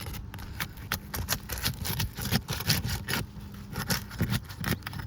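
Irregular scraping, clicking and tearing as a pry tool works under brittle, sealed-down asphalt shingles, which tear rather than lift cleanly. A faint steady low hum runs underneath.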